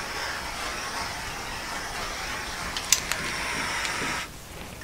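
Small handheld butane torch hissing steadily as its flame is passed over wet acrylic pour paint to heat the surface. Two sharp clicks come about three seconds in, and the hiss cuts off suddenly a little after four seconds.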